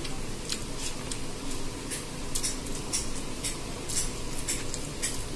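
Eating by hand: fingers working chana pulao on a plastic plate and chewing, a run of small irregular clicks and smacks, two or three a second, over a steady low hum.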